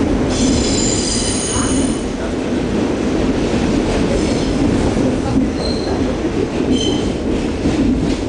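Subway train running, heard from inside the car: a steady loud rumble of wheels on track, with high-pitched wheel squeals. The longest squeal runs from about half a second to two seconds in, and shorter ones come several times later.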